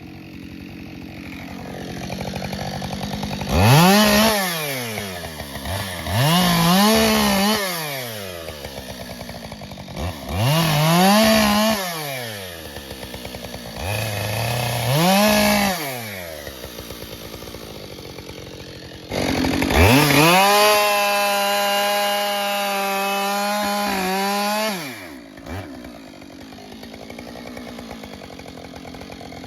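Husqvarna 572XP two-stroke chainsaw with a 20-inch bar, cutting ash logs. It idles, then goes up to high revs in four short bursts, each rising and falling in pitch, then holds full revs for about five seconds before dropping back to idle.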